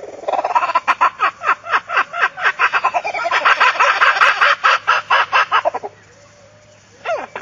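An animal calling loudly in a fast run of short, falling notes, several a second, for about five seconds, then two more calls near the end.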